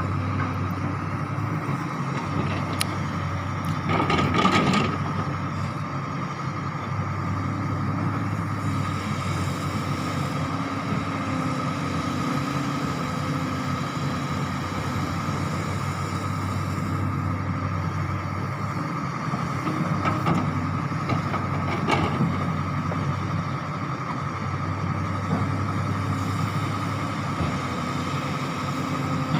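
Excavator engine running steadily with a constant hum, with brief louder bursts about four seconds in and twice near the end.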